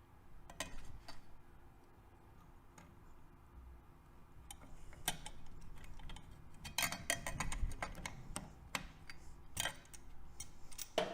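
Light metallic clicks and ticks of needle-nose pliers working a small part onto the starter idle gear in a Honda CBX engine's upper crankcase. The clicks come sparsely at first, then in a quick flurry about seven seconds in and again a couple of seconds later, as it takes a few tries to seat.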